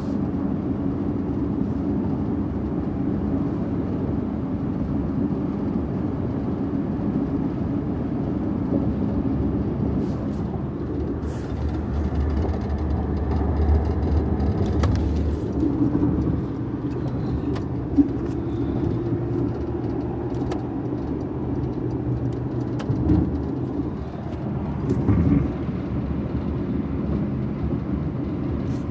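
2015 Porsche Macan S making an unexplained noise from its front end: a steady low running sound with a few sharp clicks or knocks scattered through it, the sharpest about two-thirds of the way in.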